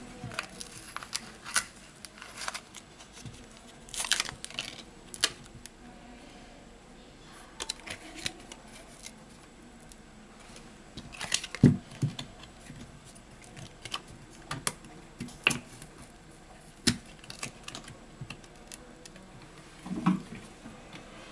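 Plastic back cover of a Samsung Galaxy A70 being pried off with a thin plastic pry card: irregular clicks, taps and scrapes as the glued cover is worked loose along the edge, with the loudest knock about halfway through and another near the end.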